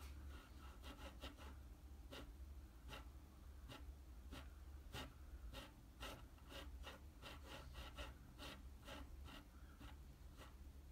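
Faint, irregular clicks and scratches from an opened computer mouse with its circuit board exposed, being moved and handled on a desk, over a low steady hum.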